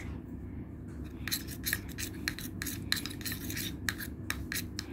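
Metal spoon stirring a thick glue-and-paint slime mixture in a glass tumbler, clinking and scraping against the glass in quick, irregular strokes from about a second in. The glue is thickening into slime as detergent water is mixed in.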